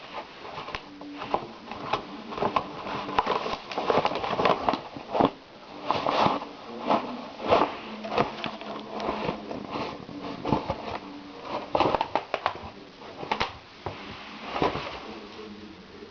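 A shopping bag crinkling and rustling in quick, irregular bursts as a Great Dane puppy plays with it.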